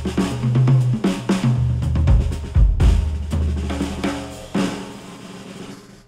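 Drum-led instrumental music, a drum kit with kick, snare and hi-hat over a bass line, played through FiiO FT1 Pro open-back headphones and picked up by measurement microphones on a test rig. It gets quieter over the last second and a half.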